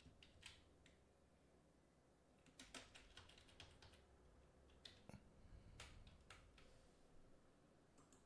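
Faint computer keyboard typing: short runs of keystrokes with pauses between them.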